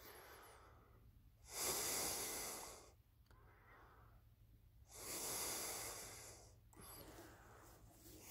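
A rifle shooter's breathing close to the microphone: two slow, heavy breaths about three seconds apart.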